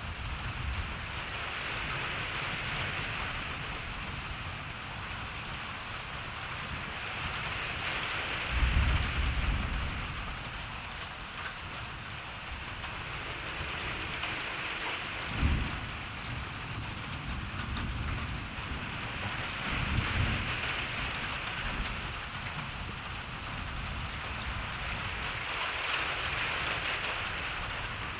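Steady rain hiss, swelling and easing every few seconds, with low rolls of thunder: the longest about nine seconds in, a short sharp low thump around fifteen seconds, and another rumble near twenty seconds.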